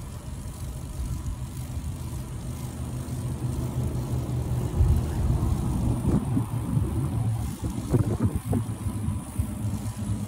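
Wind buffeting the phone's microphone as the bicycle rolls along: a steady low rumble, with a few knocks about five and eight seconds in.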